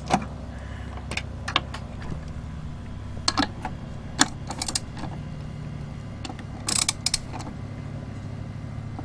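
A 3/8-inch ratchet with an extension and 10 mm deep socket turning nuts down, with scattered metallic clicks and clinks in short clusters, over a steady low hum.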